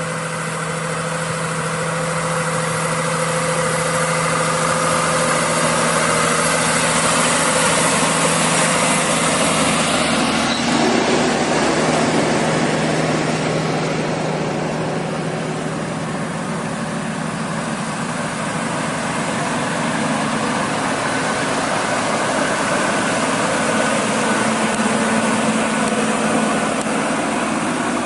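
Heavy truck's diesel engine running steadily, a deep hum with a whine above it. Its note shifts about ten seconds in and creeps slightly higher near the end.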